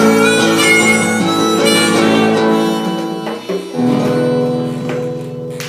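Live acoustic music with guitar and a sustained reedy lead tone. It pauses briefly about three and a half seconds in, then closes on a long held final chord.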